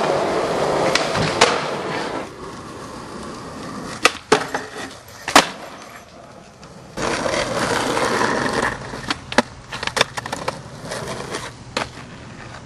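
Skateboard wheels rolling over pavement, the rumble fading after a couple of seconds and returning midway, with sharp clacks of the board hitting the ground: a loud one about five seconds in and a quick scatter of them near the end.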